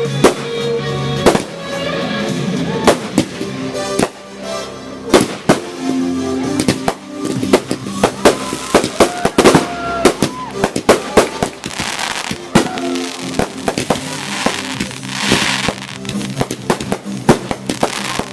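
Aerial fireworks bursting overhead in quick succession, a run of sharp bangs that grows into a dense barrage, with two longer hissing stretches about twelve and fifteen seconds in. Music plays underneath.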